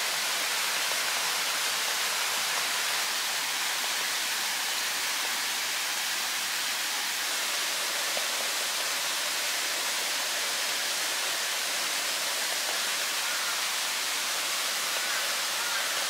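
Steady rushing of a mountain stream, an even wash of water noise that does not change.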